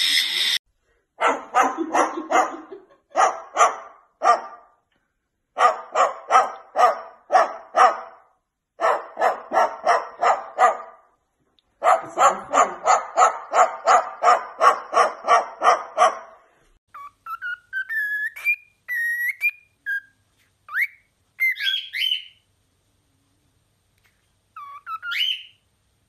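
Barking in quick runs of short calls, about three a second, for the first half, then a pet bird whistling rising and falling notes, with a last short rising whistle near the end.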